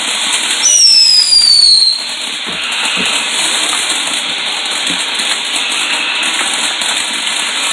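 A firework whistling for about a second with a falling pitch, followed by a steady crackling hiss with a few faint pops.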